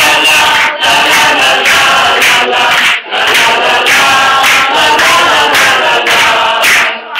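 A roomful of people singing loudly together, many voices at once, with short breaks between phrases about a second in, about three seconds in and near the end.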